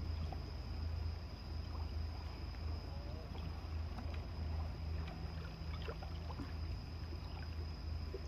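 Low, steady engine hum with a slight flutter, under a thin steady high-pitched whine and a few faint scattered ticks.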